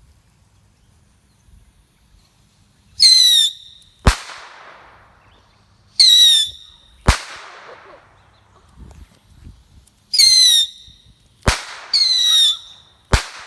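Whistling fireworks going off in a series: four short whistles, each falling slightly in pitch, and four sharp bangs.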